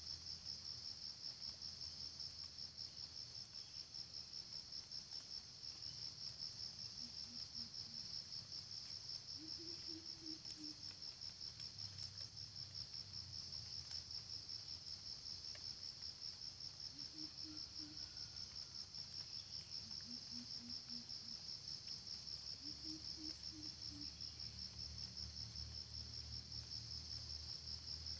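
Steady high-pitched insect chorus, a fast even trill that never stops. Five times, faint low clucks come in short runs of three to five notes.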